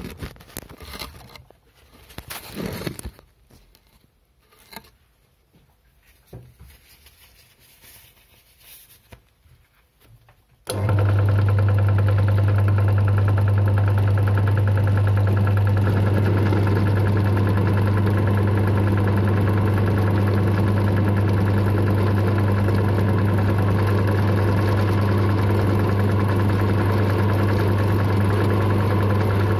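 An electric drill press switches on about ten seconds in, after a few faint handling clicks, and runs with a steady, loud motor hum while a 4 mm bit is fed into St3 mild steel.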